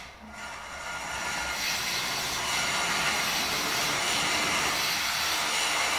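Kayak paddling ergometer's mesh-caged fan flywheel spinning as it is paddled. It picks up over the first second and a half, then runs as a steady whirring whoosh.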